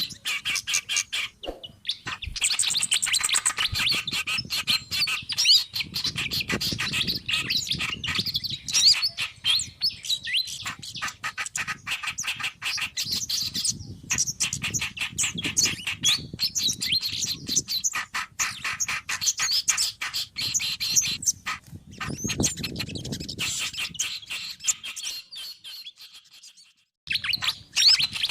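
Dense chorus of small songbirds chattering and twittering rapidly, several birds calling over one another, as in a bird-lure recording built from reed warbler, fantail and sunbird calls. It fades and stops for about a second near the end, then starts again.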